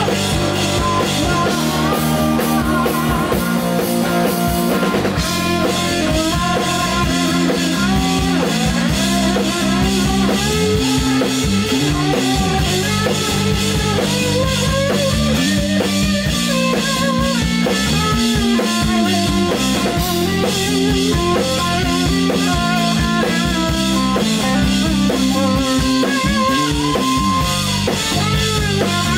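Live rock band playing: a Telecaster-style electric guitar carrying a bending, wavering lead line over electric bass and a drum kit.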